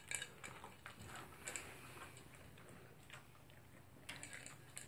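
Toy poodle eating dry dog food from its bowl: faint, scattered crunches and clicks of kibble against the bowl, coming a little closer together near the end.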